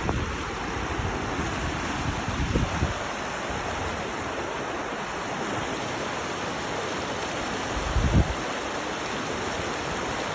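Running water rushing steadily, with a few brief low gusts of wind on the microphone.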